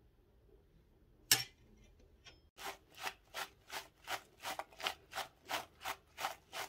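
Sliced apples being tossed in a glass bowl, a rhythmic swish of slices sliding and tumbling about three times a second, after a single sharp knock about a second in.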